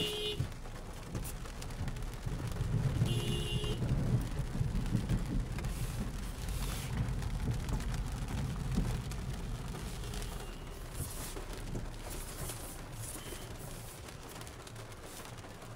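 Inside a car creeping through a flooded street in rain: a low engine and tyre rumble with rain on the windshield. Two short beeps sound, one right at the start and one about three seconds in.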